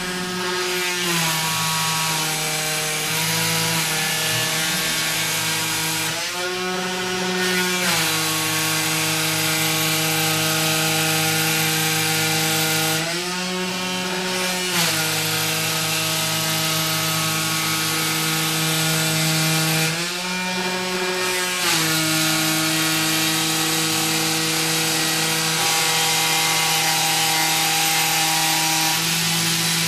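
DIY benchtop CNC machine cutting 5 mm foam-board, its stepper motors whining in a stack of steady tones. The pitch changes every several seconds as the gantry changes speed or direction, over a steady hiss.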